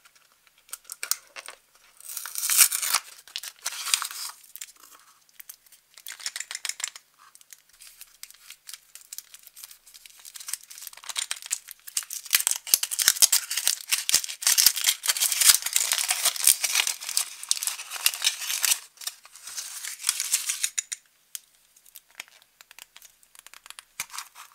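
Cardboard box being torn open, then aluminium foil crinkling as it is peeled off a chocolate egg, in a long stretch of dense rustling. Near the end comes a short rustle as a small plastic toy capsule is pulled open.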